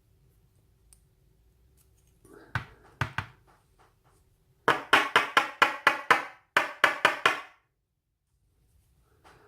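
Metal lock parts rapped against a hard surface to shake loose pins stuck in their chambers: a few knocks, then two quick runs of sharp, ringing taps.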